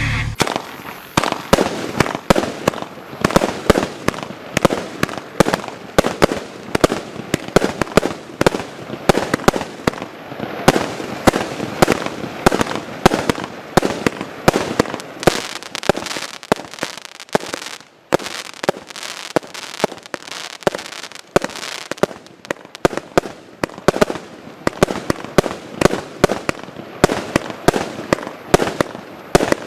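Klasek 'Show 390' firework going off in a rapid, continuous barrage of bangs and crackling shots, several a second, with a brief lull about 18 seconds in before it carries on.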